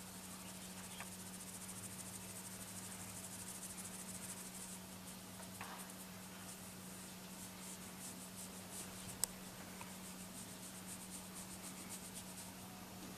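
Fingers scratching a cat's head fur close to the microphone: a faint, quickly repeating rustle over a steady low hum, with one sharp click about nine seconds in.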